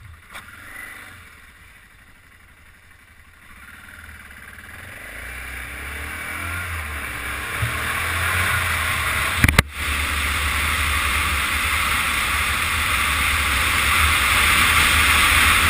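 Motorcycle riding off and picking up speed, its running noise and the air rush growing steadily louder over the first ten seconds and then holding steady. A single sharp click comes about nine and a half seconds in.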